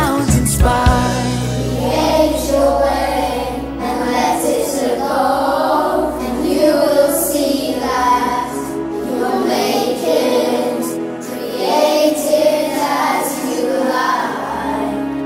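A children's choir singing a section of a pop song over its backing track, in sustained, drawn-out notes.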